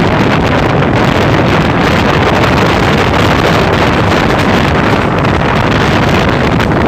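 Steady rush of a passenger train running at speed, heavily mixed with wind buffeting the microphone.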